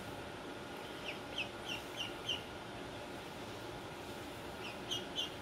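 Blue Runner duckling (blue Indian Runner duck) peeping: a run of five short, high peeps, about three a second, a little after a second in, then two more near the end.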